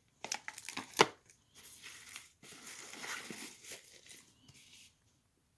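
Packaging crinkling and rustling as items are lifted out of a box, with a sharp crackle about a second in that is the loudest moment.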